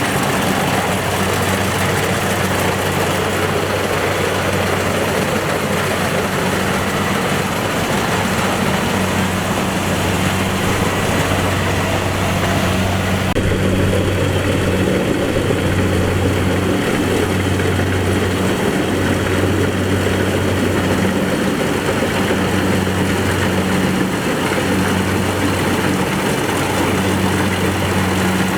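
Kubota DC-70 Plus rice combine harvester running steadily, a loud diesel drone with a low hum. About halfway the higher rushing noise falls away and the low drone carries on.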